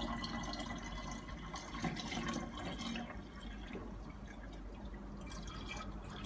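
Water trickling and dripping as it is poured into the top water reservoir of a Sturdy SA230FA tabletop autoclave. It eases off about halfway through.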